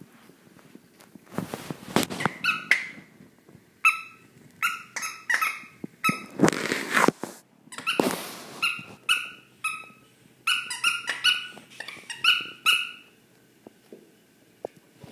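A puppy chewing a squeaky toy, setting off many short, high squeaks in quick runs, with louder scuffing and chewing noises in between. The squeaking stops about two seconds before the end.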